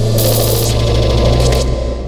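Digital cinematic riser sound effect at its peak: a loud swell of low drone under a bright hiss, which cuts off sharply near the end, leaving a deep hum to fade away.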